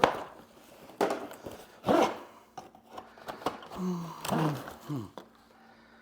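Cardboard and foam packaging rustling and scraping while loose saw parts are handled and checked, with sharp knocks at the start, about a second in and about two seconds in.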